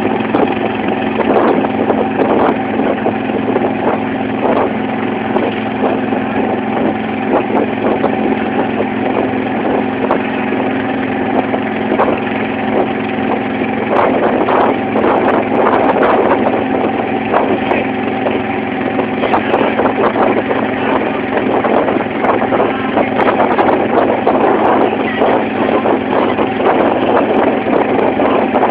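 Engine of a wooden banka motorboat running steadily while under way, with water splashing and rushing along the hull.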